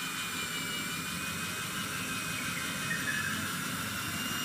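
Cordless drill driving a screw through an L foot into an asphalt shingle roof, its motor running with a steady whine.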